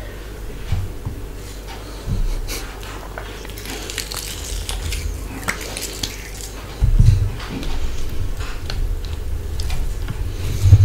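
Close-miked crackling and squishing of fingers working food: fresh green chillies broken apart by hand, then plain rice pressed and mixed by hand on the plate. Louder low thumps and handling noises start about seven seconds in.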